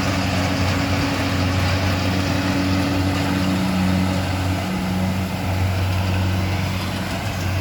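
Rice combine harvester running steadily: a low engine hum under a constant rushing noise.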